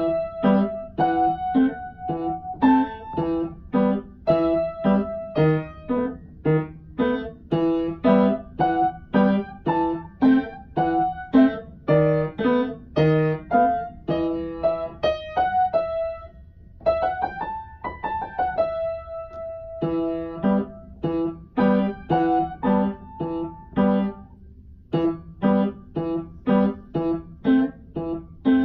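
Upright piano played solo in an improvised piece: a steady stream of struck chords and melody notes. A little past halfway comes a quick run up and back down the keys.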